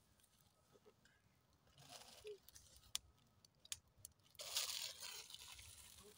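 Footsteps crunching through dry fallen leaves, with the loudest burst of crunching about four and a half seconds in. A few sharp clicks come just before it.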